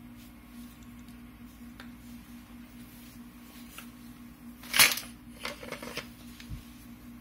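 IWI X95 rifle's metal and polymer parts clicking and knocking as the partly stripped rifle is picked up and handled: one sharp clack just under five seconds in, then a few lighter knocks.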